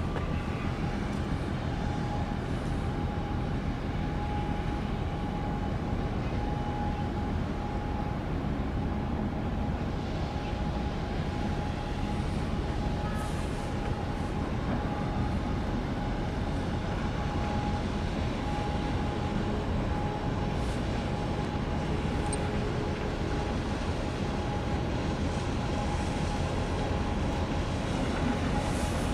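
Steady low machinery rumble with a constant hum from a large cape-size bulk carrier passing close by. A second, lower hum joins about two-thirds of the way in.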